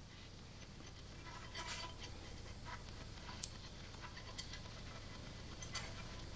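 Faint brushing and scraping on the end of a copper pipe as soldering flux is spread on it, with a few light clicks in the second half.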